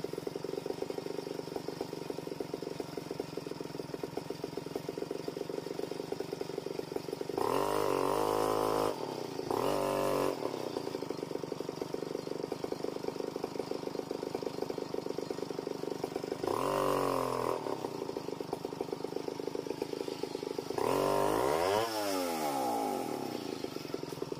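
Stihl chainsaw idling steadily, revved up and let fall back about four times, each burst rising and then dropping in pitch. The last rev, near the end, is the loudest.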